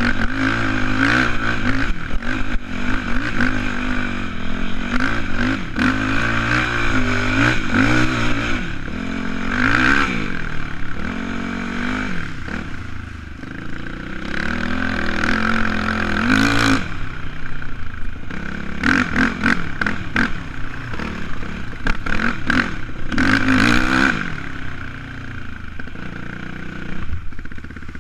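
Yamaha YFZ450 quad's single-cylinder four-stroke engine revving up and down under hard riding, its pitch climbing and falling with each burst of throttle, with rattling from the machine. The engine eases off briefly about halfway through and again near the end.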